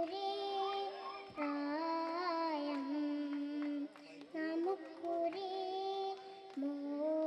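A young girl singing into a microphone, holding long notes in phrases with short breaks between them.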